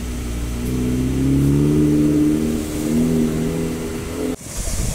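A motor vehicle engine running, its pitch shifting up and down as it revs. It cuts off abruptly near the end, replaced by a steady rushing hiss.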